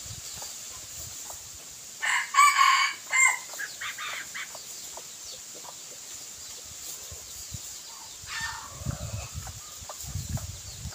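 Red junglefowl-type decoy rooster crowing once, a short loud crow of just over a second about two seconds in. A softer call follows about eight seconds in.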